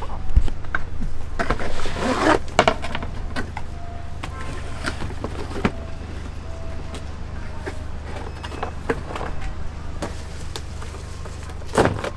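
Pizza-making work in a food-truck kitchen: scattered clicks, knocks and clatter of utensils and dishes over a steady low hum, with a louder scraping rustle about two seconds in.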